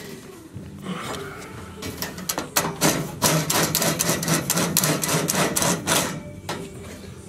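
A rapid run of sharp knocks or clicks, several a second, starting about two seconds in and stopping about six seconds in.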